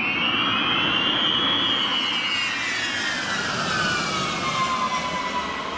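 Jet aircraft flying past, its engine a loud roar with a high whine that climbs slightly in pitch, then falls steadily as it goes by.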